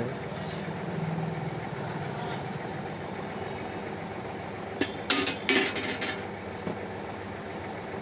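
Steady low background hum, with a short burst of clattering knocks about five seconds in as an aluminium ceiling fan blade and the fan's motor housing are handled on a table.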